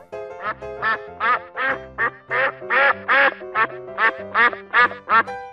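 Ducks quacking in a rapid run, about three quacks a second, over steady background children's music.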